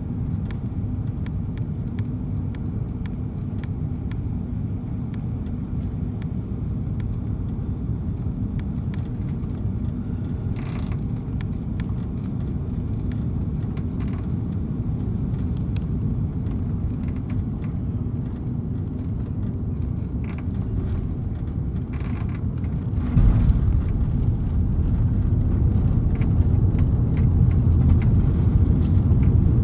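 Cabin noise of an Airbus A340 airliner on final approach: a steady rumble of engines and airflow. About three-quarters of the way through, the rumble suddenly grows louder and heavier as the jet touches down and rolls along the runway.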